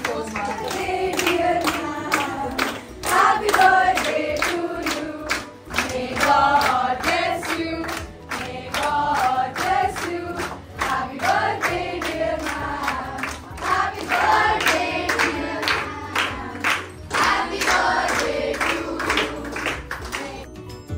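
A group of schoolchildren singing together and clapping in time.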